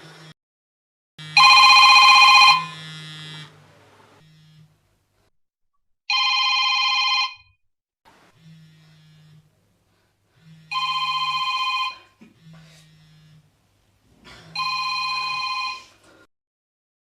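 Mobile phone ringtone ringing four times, about every four seconds, each ring a bright electronic trill lasting just over a second; the first ring is the loudest. A faint low buzz sounds in the gaps between rings.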